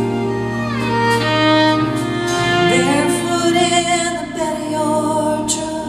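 Live band playing a song's instrumental introduction, with sustained melody notes that slide in pitch over a steady low bass note.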